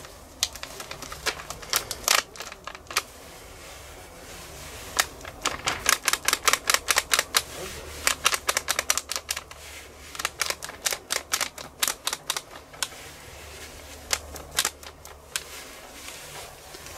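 Metal spoon tapping in quick runs of light clicks, about five a second, as curry powder is shaken from a bag over a simmering stew in a cast-iron Dutch oven.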